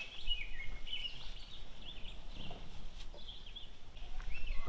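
Small birds chirping and warbling in quick, short high notes, with no let-up.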